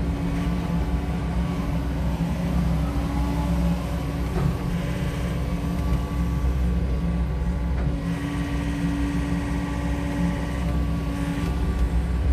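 SANY SY80U mini excavator's diesel engine running steadily under working load, with a higher hydraulic whine rising in for a few seconds past the middle as the boom and bucket swing and lift.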